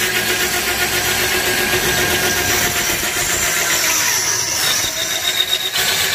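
Electric drill boring a hole through a steel frame crossmember, its motor running steadily under load.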